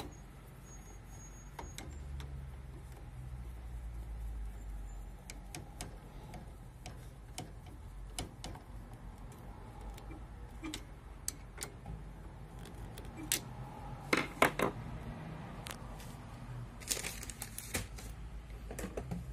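Screwdriver working the print-head mounting screws of an Epson LQ-2190 dot matrix printer: scattered small metallic clicks and taps, with a quick cluster of sharper clicks about two-thirds of the way through, over a low steady hum.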